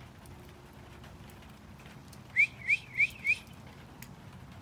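Four quick rising whistled notes, about a third of a second apart, a little over two seconds in, over faint rain patter.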